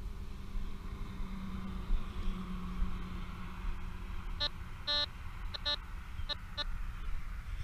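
Metal detector giving a cluster of short electronic beeps, six or seven in all over about two seconds starting a little past halfway, as its coil sweeps over the target in the hole. A steady low rumble lies underneath.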